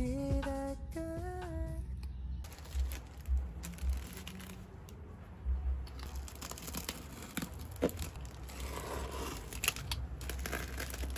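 A plastic courier mailer being torn open and crinkled by hand to free a cardboard box inside, with scattered soft knocks and handling noises. Background music cuts off about two seconds in.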